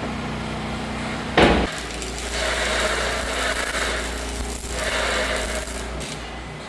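Metalworking tool noise: a sharp bang about a second and a half in, then a few seconds of hissing and crackling, over a steady low engine hum.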